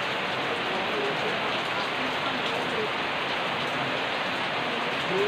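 Steady rain falling, an even hiss of rain on surfaces that does not change in level.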